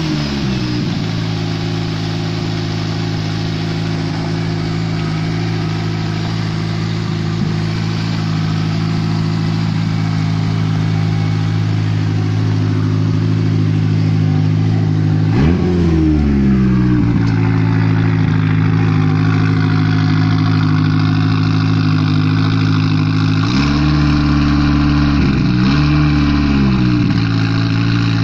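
Mitsubishi Lancer Evo VI Group A rally car's turbocharged 2.0-litre four-cylinder idling steadily. About halfway through there is one quick blip of the throttle, and near the end the engine is revved and held twice for a second or two each time before it drops back to idle.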